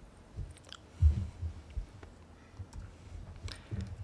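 Scattered clicks and taps of a laptop keyboard and trackpad, with a few dull thumps, the loudest about a second in.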